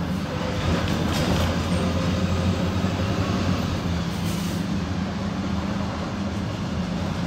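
Engine and road noise of a PAZ 4234-04 city bus under way, heard from inside the passenger cabin: a steady low engine hum over running noise, a little louder from about a second in.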